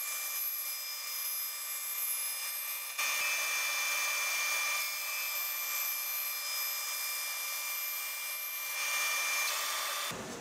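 Band saw running and slicing thin strips off a laminated maple and redheart board: a steady hiss with a thin high whine and no low hum, stopping just before the end.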